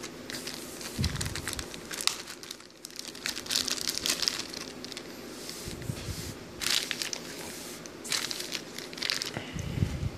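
Plastic sleeve crinkling and rustling in irregular bursts as a new phone is pulled out of it by hand, with a few soft handling thumps.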